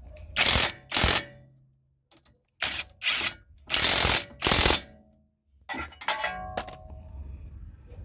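Socket ratchet wrench tightening the strut bolts in several short bursts of clicking. Near the end come a few sharp metallic clinks that ring briefly.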